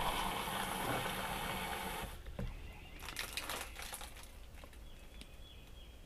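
Water running from a PVC pipe outlet into a small plastic cup, cut off by the valve about two seconds in, followed by a few faint clicks of the cup being handled.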